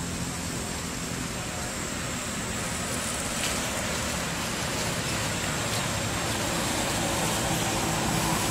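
Steady outdoor background noise: an even hiss with a low hum beneath it and a faint, steady high tone.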